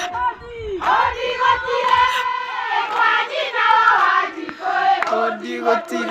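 A crowd singing and chanting together in a traditional song, with hand clapping, the voices holding long wavering notes.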